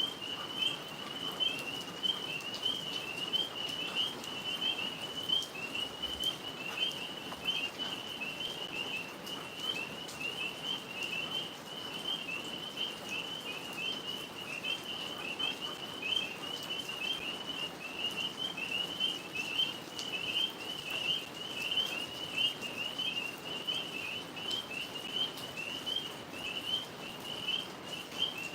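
A chorus of tree frogs calling without a break, many rapid high-pitched chirps overlapping at about the same pitch.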